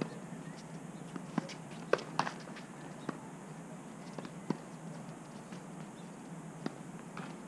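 Tennis balls bouncing on an outdoor hard court: a scattering of short, sharp knocks at irregular intervals, the loudest pair about two seconds in.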